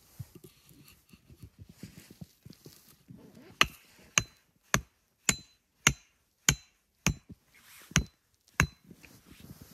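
Nine sharp blows of a tool chopping into firewood, about one every half second, starting some three and a half seconds in after a little quiet rustling and handling.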